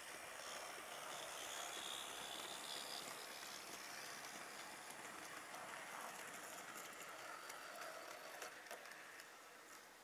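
Bachmann class 20 model diesel locomotive running past with a train of tank wagons: a steady whir from its motor and a rattle of small wheels on the track. It fades away near the end as the train moves off.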